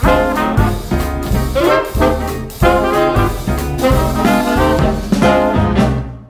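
Background music: an upbeat swing tune with brass over a steady beat, fading away at the very end.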